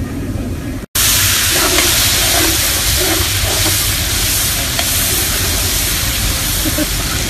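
Loud, steady sizzling hiss of meat and onions cooking in a large aluminium pot over high heat, stirred with a long metal skimmer. It starts abruptly after a brief gap about a second in; before the gap there is a quieter pot sound.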